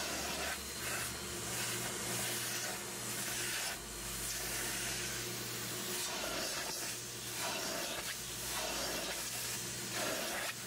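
Aqua Pro Vac carpet extractor sucking through its clear upholstery tool as it is drawn across a cloth car seat: a steady motor hum under a rushing hiss that swells with each pass, every second or two.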